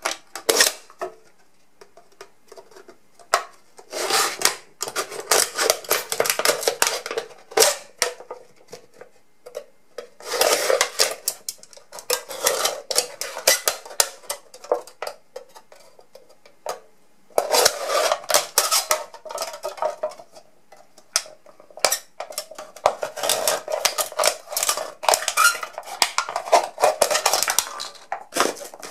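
A freshly sharpened cheap kitchen knife cutting through a thin aluminium beverage can: crinkling, crackling metal heard as rapid clicks. It comes in four bursts separated by short pauses.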